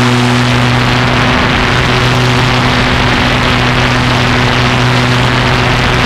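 Small aircraft's motor and propeller running at a constant speed, heard from on board: a steady hum with no change in pitch over a constant rushing noise.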